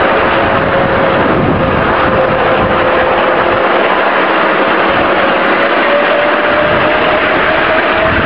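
5-inch gauge 0-4-0 electric shunter running along the track: a steady motor whine over a continuous rushing noise, the whine rising slightly in pitch over the last few seconds as it picks up speed.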